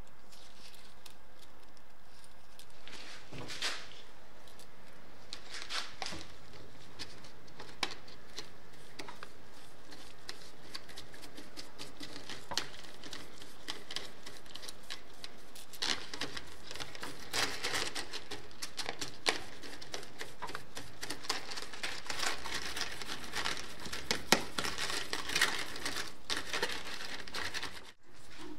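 Metal bicycle spokes being handled and brushed: small clicks and clinks of spokes against each other, and a bristle brush scraping over the bundle in a plastic bowl. The sounds are sparse at first and busiest in the second half.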